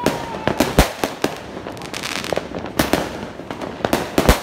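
Fireworks going off: a handheld firework tube firing shots skyward amid an irregular string of sharp bangs and pops over a constant hiss, with a short whistle near the start.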